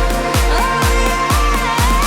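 Instrumental break in an upbeat electronic pop worship song. A steady kick drum beats about twice a second under a held, gliding synth melody line.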